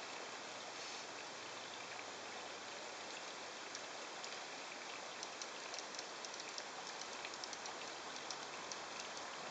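Steady outdoor background hiss, with faint high ticks scattered through the second half.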